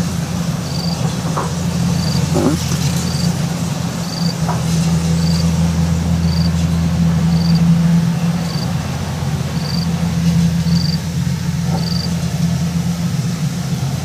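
Kubota DC70 combine harvester's diesel engine running steadily with a deep, even hum, swelling slightly midway as the machine moves through the straw.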